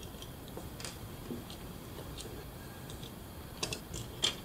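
Scattered light plastic clicks and ticks as a digital caliper's plastic housing is worked apart by hand, with two sharper clicks near the end.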